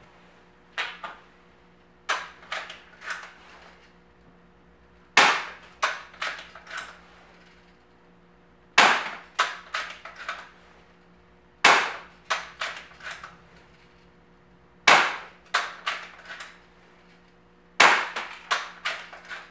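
Umarex DX17 spring-piston air pistol firing BBs: about seven shots, roughly three seconds apart, each a sharp crack followed by a quick run of quieter rattling clicks.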